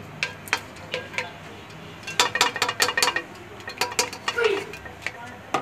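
Metal spoon tapping and scraping against a kadhai while stirring warm oil with whole cardamom pods, a quick run of clinks about two seconds in.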